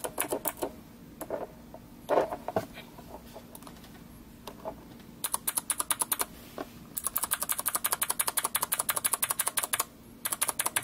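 Blue (clicky) mechanical keyboard switch in a switch tester, pressed by finger and giving sharp clicks. A few single presses come first, then fast runs of about ten to twelve clicks a second in the middle and later part.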